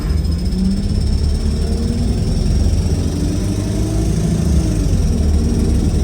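Wright StreetLite bus making a loud, unusual low pulsing noise with faint wavering tones above it: an unexplained sound whose cause is unknown.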